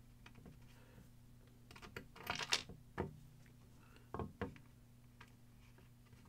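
Small clicks and knocks of a 3D-printed plastic part and a hex key being handled and fitted. The taps are faint, with a cluster about two and a half seconds in and two more around four seconds.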